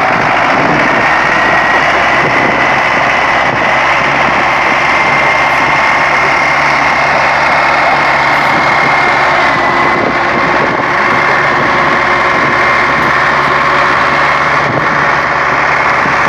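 Tractor engines running hard under load, straining to pull through deep mud, with a steady high whine over the engine noise.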